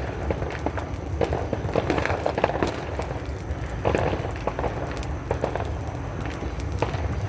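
Firecrackers and fireworks going off in the surroundings: many sharp irregular pops and crackles over a steady low rumble.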